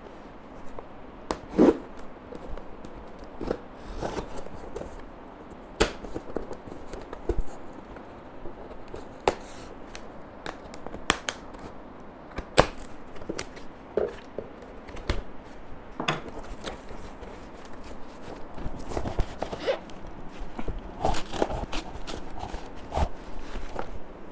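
Cardboard box being cut open with a knife: irregular scrapes, taps and knocks as the blade slices the packing tape and the flaps are pulled apart. Near the end, denser rustling of cardboard and plastic wrapping as the wrapped item is lifted out.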